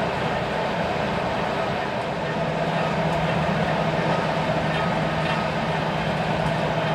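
Passenger train running, heard from inside the carriage: a steady rumble and hum, with a low steady tone coming in about two seconds in.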